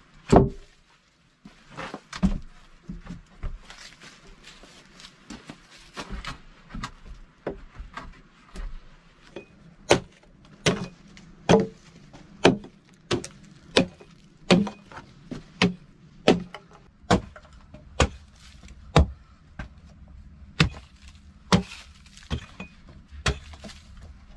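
Axe or hatchet striking wood in a steady series of blows, a little under a second apart, through the middle of the stretch. Before that, a loud single knock near the start and lighter, scattered knocks of wood on wood.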